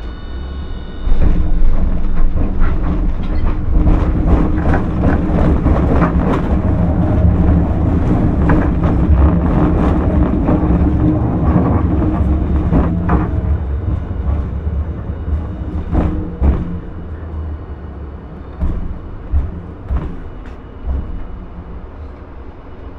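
Hiroshima Electric Railway streetcar heard from inside while running on street track: a low rumble of the wheels with a steady motor hum, and sharp clacks as the wheels cross rail joints. It gets suddenly louder about a second in, then quietens over the last several seconds as the tram slows, with a few separate knocks.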